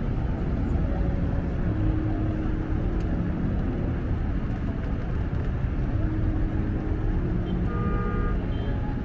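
Steady low rumble of outdoor city ambience with traffic noise, with faint distant voices now and then.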